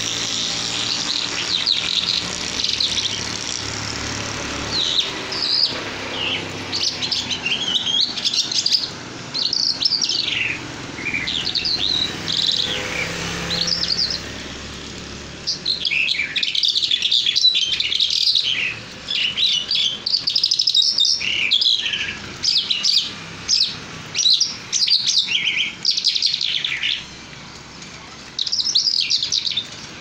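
Caged jal mushadi songbird singing a long, varied song of rapid, high twittering and warbling phrases, each a second or so long with short breaks between, coming faster and more continuously in the second half.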